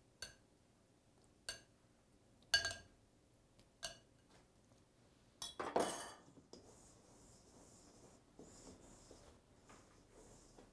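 Metal spoon clinking against a glass bowl while water is spooned onto rice flour: four sharp ringing clinks about a second apart, then a louder clatter a little past halfway. After that, a faint soft rustle of hands mixing the damp rice flour.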